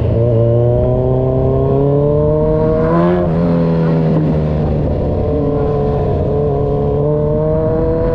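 Kawasaki Z1000 Sugomi's inline-four engine through an Avionic V4 aftermarket exhaust, pulling up through the revs. About three seconds in, the pitch drops sharply as it shifts up a gear, then it climbs steadily again.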